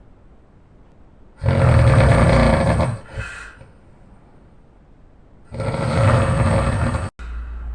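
A man snoring loudly: two long snores, each about a second and a half and heavy in the low end, about four seconds apart, with quiet breathing between.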